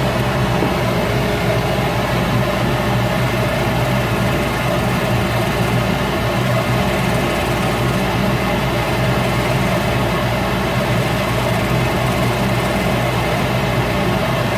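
Shop Fox W1836 midi wood lathe running steadily, a constant motor hum with a few steady tones over an even whirring noise.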